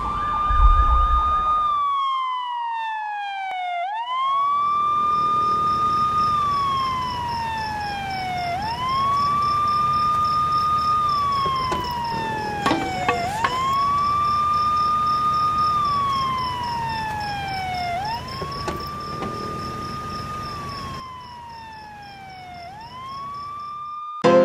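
A deep boom, then a siren wailing in slow cycles: each cycle rises quickly, holds a high note for about a second and a half, then slides slowly down, repeating about every four to five seconds. A faint, high, rapid beeping runs alongside it for most of the time.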